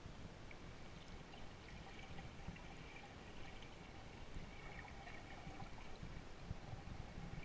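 Faint, muffled water noise heard from underwater: a steady low rumble with light sloshing of water.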